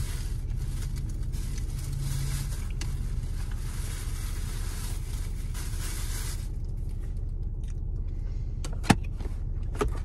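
Car engine idling, heard inside the cabin as a steady low hum. A high hiss over it cuts off suddenly about six seconds in, and a sharp click comes near the ninth second.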